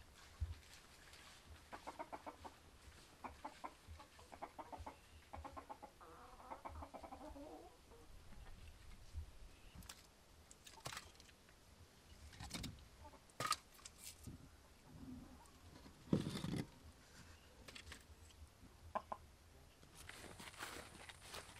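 Chickens clucking in quick runs of calls, then wooden knocks and clacks as split firewood logs are pulled from a stacked woodpile, with one heavier thud among them.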